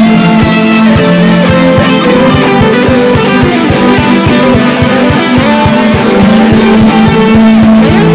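Instrumental music: held chords over a fast, even pulse low down, about six beats a second.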